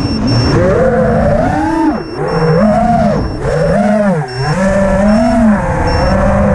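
FPV quadcopter's brushless motors and propellers whining, the pitch swooping up and down with throttle changes and dipping low about two seconds in and again about four seconds in. A low rumble runs under it, typical of wind on the onboard camera's microphone.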